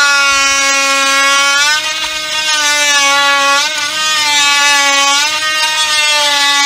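Cordless drill boring into a wooden deck post: a steady, high motor whine that sags briefly in pitch a couple of times as the bit bites into the wood.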